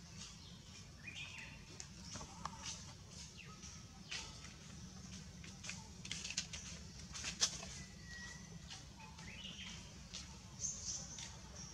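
Dry leaves crackling and rustling in short, irregular bursts as a baby monkey scrambles over them, with a few faint short chirps over a steady low hum.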